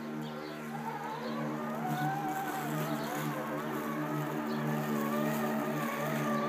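Robomow robotic lawnmower running on grass: a steady electric motor hum, joined about a second in by a higher whine that wavers up and down in pitch.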